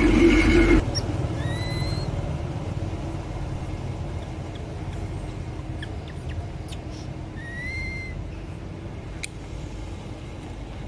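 A loud steady hum cuts off suddenly just under a second in. Then, over a low background rumble, an infant long-tailed macaque gives two short squeaky calls that rise and then hold, about six seconds apart.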